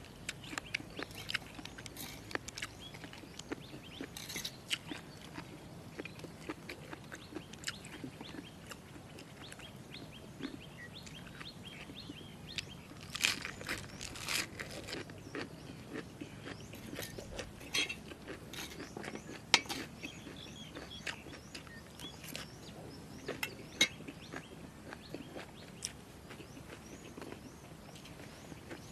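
Close chewing and crunching of a jellyfish salad: irregular crunches and clicks, a few louder ones scattered through. Small birds chirp in the background.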